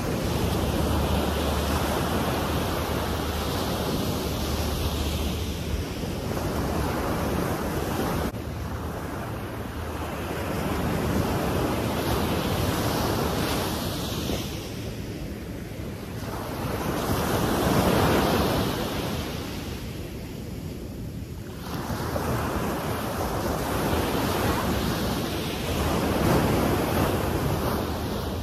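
Ocean surf breaking and washing up a sandy beach, swelling and fading every few seconds, with wind buffeting the microphone.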